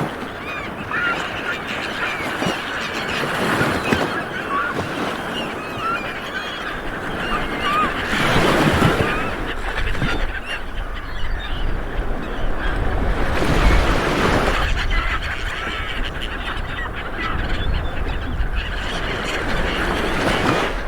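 Light waves washing onto a beach, surging twice in the middle, with many birds calling over them in short, repeated calls.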